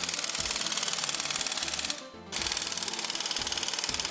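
Impact wrench hammering in two runs with a short break about two seconds in, a fast even rattle of blows, tightening a new stabilizer link's nut.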